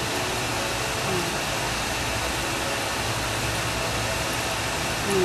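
A steady, even hiss, like a fan or rushing air, with a faint voice murmur about a second in.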